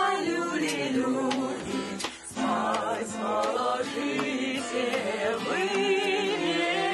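Several voices singing a song together, with a brief pause for breath about two seconds in.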